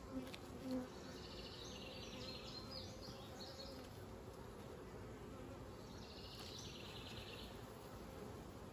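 Honey bees from an open hive humming steadily and faintly. There are two brief, louder sounds in the first second, and a high, pulsing trill sounds twice in the background.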